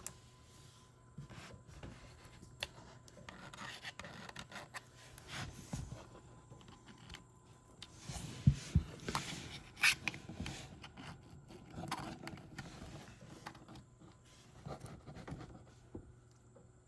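A USB-C cable and its plug being handled against a laptop, with rubbing and scraping and a few sharp clicks about halfway through.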